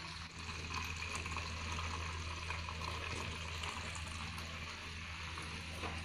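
Water trickling steadily from a small tube fountain into a glass of water, over the steady low hum of the small motor pump that keeps the water circulating.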